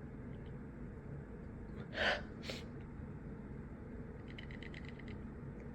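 A person's sharp gasping breath about two seconds in, followed at once by a quick sniff, while fighting off a sneeze. Later comes a brief run of about ten faint, rapid ticks.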